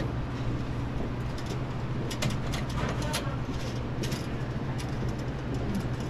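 Light metal clicks of a conveyor toaster's wire chain-link belt being handled and hooked back together, a few scattered ticks over a steady low hum.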